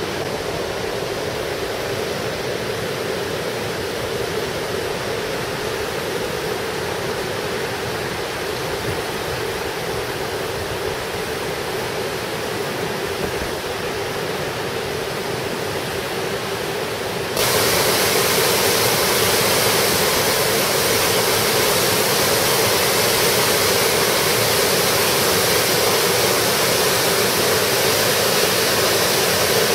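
Steady rushing of river white water pouring over a dam spillway and rocky cascades. About seventeen seconds in, the rush jumps suddenly louder and brighter, then holds steady.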